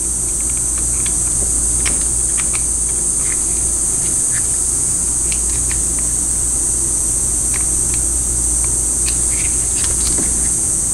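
Scattered light clicks and taps of small metal transmission valve body parts being handled and fitted, over a steady high-pitched hiss and a low hum.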